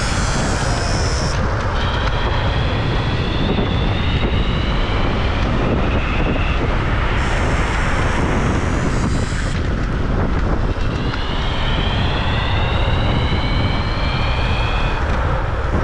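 Electric scooter's motor whining over heavy wind rush. Twice the whine climbs steadily in pitch for several seconds as it accelerates. Between the climbs a higher whine comes in as it slows.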